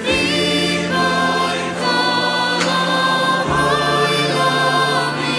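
A cappella vocal music: several voices singing in harmony over a held bass note, the upper voices sliding between notes and the bass dropping lower about three and a half seconds in.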